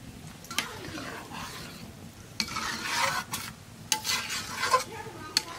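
A metal spatula stirring and scraping through a thick eggplant mash in an iron karahi, in several strokes, with sizzling from the hot fried-garlic tempering just mixed in. A sharp clink of metal on the pan near the end.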